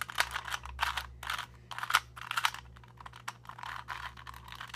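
ShengShou 2x2 speed cube being turned by hand, its plastic layers clicking and clacking in quick, irregular runs of turns.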